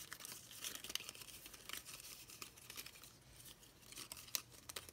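Faint rustling and crinkling of a sheet of die-cut 110-pound cardstock being handled and flexed, with scattered small clicks as the cut flower pieces are worked out of the sheet.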